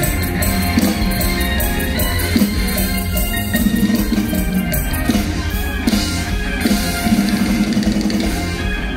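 Live mor lam band music played loud through a concert PA, with a steady drum-kit beat and bass.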